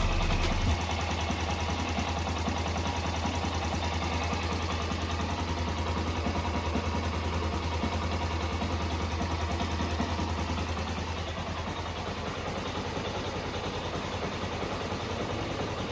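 Yamaha Crosser 150's single-cylinder four-stroke engine idling steadily and evenly. The owner says it now runs quiet after a Militec additive and about 200 ml of extra engine oil.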